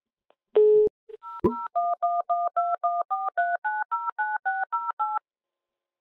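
A short low beep and a click, then a rapid run of telephone touch-tone (DTMF) keypad tones, about five a second, each a pair of pitches. The run stops abruptly a little after five seconds in.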